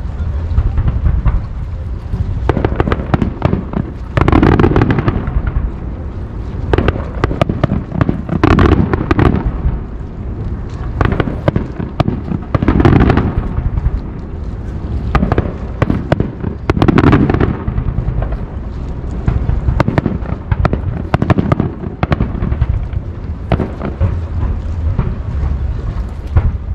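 Fireworks display: a continuous stream of crackling and popping shells over a low rumble of booms, with louder bursts about every four seconds.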